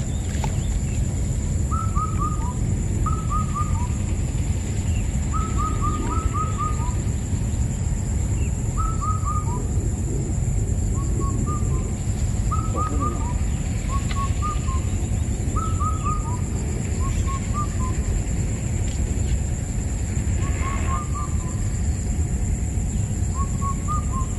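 A bird calling again and again, each call a quick run of two or three falling notes, repeated every second or two. Beneath it runs a steady low rumble, and above it a thin steady high-pitched tone.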